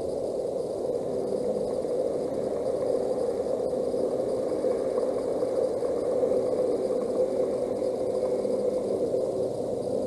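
Steady low rushing outdoor background noise with a faint hum and no distinct calls standing out.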